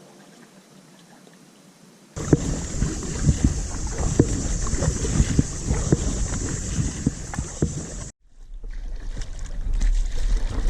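Water splashing and knocking around a kayak as it is paddled, with many sharp little splashes. It starts suddenly about two seconds in and cuts off abruptly after about six seconds, followed by wind rumbling on the microphone.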